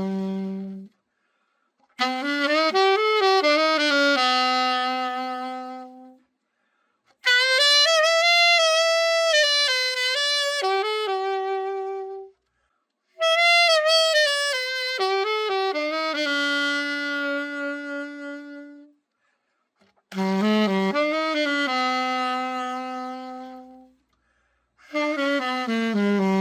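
Genesis Master 6 silver alto saxophone, freshly overhauled, played solo: a slow melody in short phrases, each ending on a held note with a slight vibrato, with brief pauses between them.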